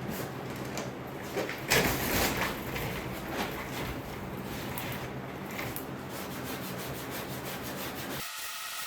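Sanding on the body of a 1970 GMC pickup: a steady rubbing, loudest about two seconds in. Near the end it cuts off abruptly and a different steady sound takes its place.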